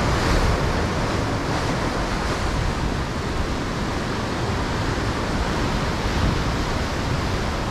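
Steady rush of sea surf washing over rocks, mixed with wind rumbling on the microphone.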